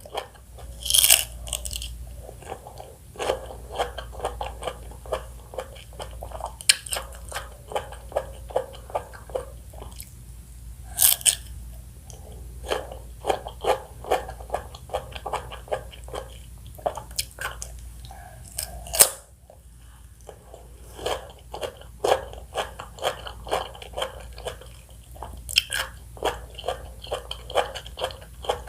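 Close-miked biting and chewing of juicy fresh fruit. A few sharp crunchy bites stand out, with runs of quick wet chewing between them.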